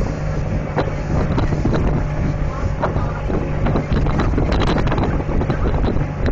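Wind buffeting the microphone over a steady low engine hum, with scattered knocks.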